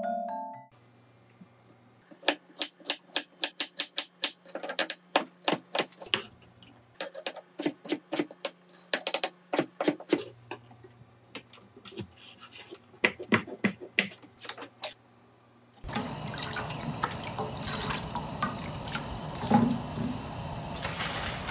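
Kitchen knife chopping vegetables on a wooden cutting board: quick, uneven chops, several a second, in runs with short pauses. About three-quarters of the way through this gives way to a steady watery hiss with small pops from a pot of liquid on the gas stove.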